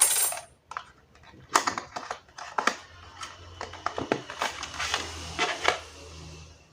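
Irregular clicks, taps and a brief rustle of small laptop parts being handled and detached during disassembly.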